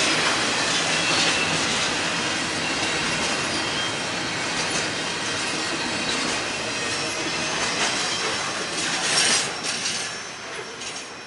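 Double-stack intermodal well cars of a BNSF freight train rolling past: a steady noise of steel wheels on rail, with thin high-pitched wheel squeal and clicking over rail joints. A few sharp clicks come about nine seconds in, then the sound fades as the end of the train passes and moves away.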